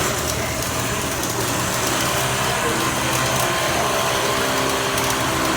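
A loud, steady hissing rush of machinery, like an industrial power tool or blower running, over a low steady hum, with a few faint steady tones joining about two seconds in.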